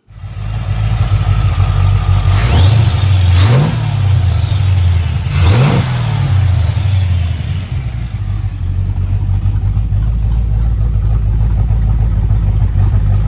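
Roots-supercharged small-block V8 running on a draw-through Holley carburetor, idling steadily and revved twice by the throttle, about two and a half and five and a half seconds in. Each rev rises and falls back to idle.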